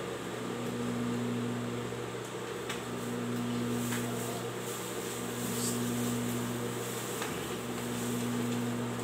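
Electric motor of an industrial overlock machine humming steadily while idle, with one tone in the hum dropping out and returning about every two seconds.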